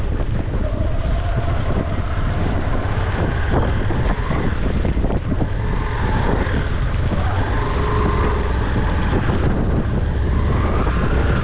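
Wind buffeting an action-camera microphone in a steady gusty roar, over a constant low rumble. Faint wavering tones come and go higher up.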